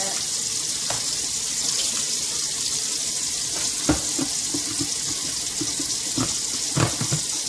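Kitchen faucet running steadily into a stainless steel sink, with a few sharp plastic knocks as the lid of a microwave steam sterilizer is set on and pressed into place; the loudest knock comes about halfway through, and two more close together near the end.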